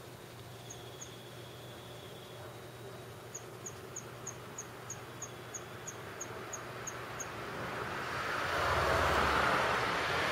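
Outdoor ambience with a run of about a dozen short, high chirps at about three a second, then a swelling rush of noise in the last couple of seconds.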